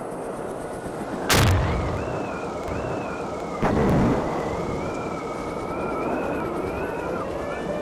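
Logo intro sound effects: a steady crackling hiss with a wavering high whine over it, broken by two booming hits about a second and a half and nearly four seconds in.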